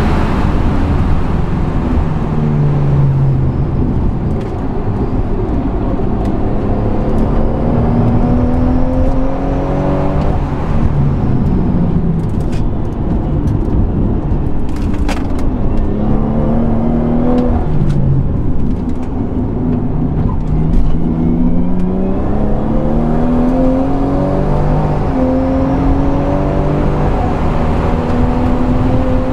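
BMW M240i's turbocharged 3.0-litre straight-six, running a Stage 1 tune with a catless downpipe, heard from inside the cabin on a hard track lap. The engine note falls under braking and downshifts near the start, then climbs in pitch again and again through the gears as the car accelerates out of corners, with steady tyre and wind noise underneath.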